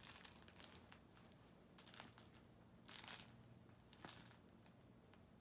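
A small puppy busy with a chew toy in a fleece dog bed: faint, scattered crinkling and crunching in about five short bursts, the loudest about three seconds in.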